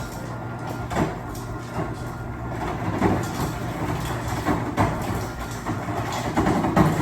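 Refrigerator door ice dispenser running and crushing ice, with a steady mechanical grinding and irregular clatters of ice falling into a cup.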